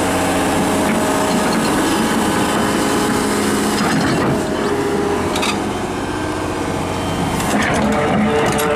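Daewoo S370LC crawler excavator working, its diesel engine and hydraulics running steadily, with a run of short clicks or knocks near the end.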